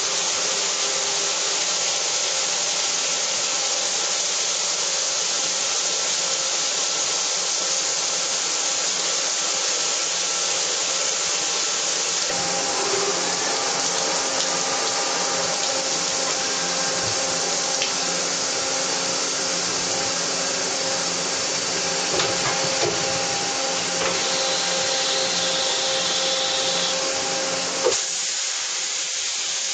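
Mitsubishi MH-50C horizontal machining center running with flood coolant spraying: a steady hiss under a steady whine of several tones. The tones change about 12 seconds in, and a single knock near the end is followed by the low hum dropping away.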